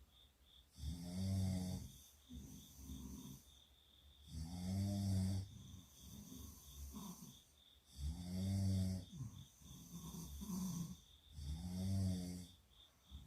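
Girls snoring in their sleep: four loud, pitched snores about three and a half seconds apart, with softer snores in between.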